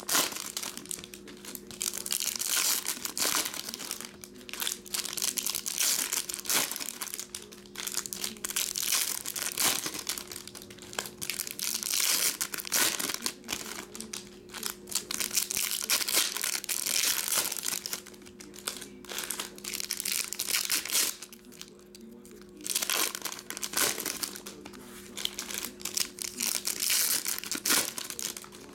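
Silver foil wrappers of Topps Chrome baseball card packs crinkling and tearing as they are opened by hand, in repeated bursts with short pauses, over a steady low hum.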